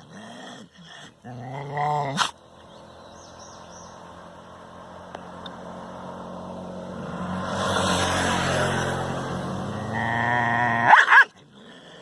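A dog growling and whining, a rough growl swelling in the middle, with high whines near the start and end that cut off abruptly.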